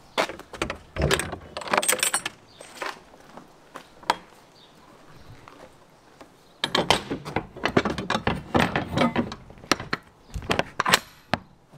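Metal latches and a locking-bar handle on a moving truck's cargo box doors being unlatched, in bursts of clacking and rattling: a run over the first few seconds, a lone clack about four seconds in, then a longer run of rattling later and a few last clicks near the end.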